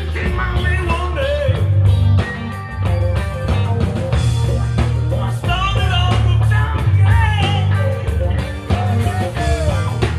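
Live rock band playing: electric guitars and drums, with a man singing into a microphone on stage.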